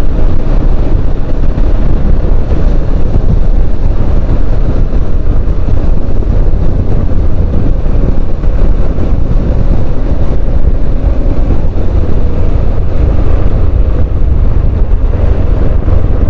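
Heavy wind blast buffeting the microphone on a moving motorcycle, a loud steady rumble, with the bike's engine and road noise running underneath.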